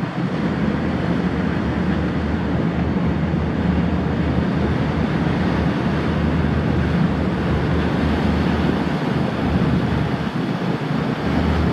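Boeing Jetfoil 929-100 hydrofoil running foilborne at cruising speed: the steady noise of its twin gas turbines and waterjet propulsion, with the spray of its waterjet wake. The sound is an even, low rushing noise that does not change, with wind noise on the microphone.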